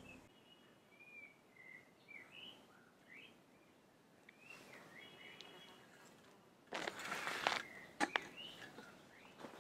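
Small birds chirping with many short, rising and falling calls. About two-thirds of the way in, a louder rustling crunch lasts nearly a second, followed by two sharp clicks.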